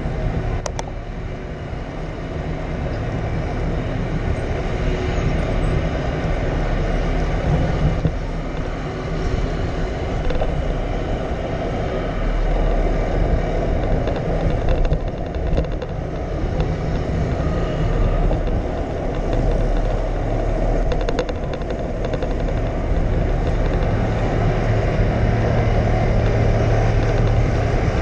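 Wind rushing over the microphone and tyre and road noise from a moving bicycle, a steady noisy rumble.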